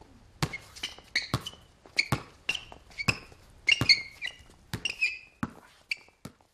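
A basketball being dribbled on a hard outdoor court, bouncing about twice a second, with short high sneaker squeaks after many of the bounces. The bounces grow fainter and sparser near the end.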